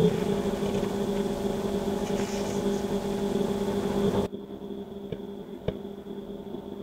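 A steady low hum with a hiss over it; about four seconds in the hiss cuts off suddenly, leaving the hum and two faint clicks.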